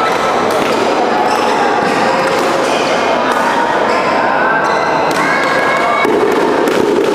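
Busy badminton hall din: many overlapping voices and calls, with scattered sharp thuds of racket strikes on shuttlecocks and footfalls from the courts.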